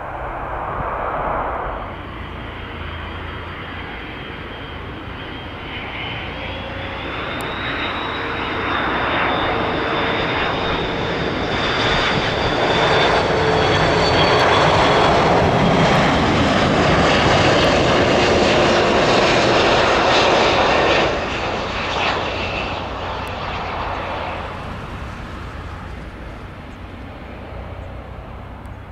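Jet airliner's engines passing by, a roar with a high whine that builds over about fifteen seconds, drops off sharply about two-thirds of the way through, then fades.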